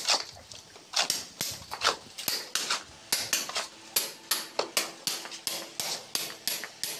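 Steel shovel scraping and clanking on a concrete floor as a gravel-and-cement mix is turned by hand: a run of sharp, gritty strikes, settling into about three a second.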